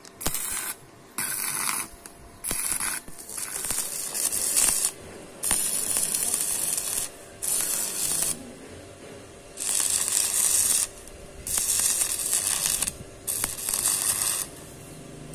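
About nine bursts of hissing noise, each from half a second to a second and a half long, with short pauses between them, over a faint steady hum.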